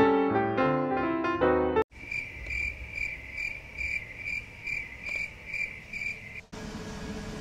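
Piano music that cuts off abruptly about two seconds in, followed by cricket chirping, about two chirps a second, until shortly before the end. A faint steady hum is left after the chirping.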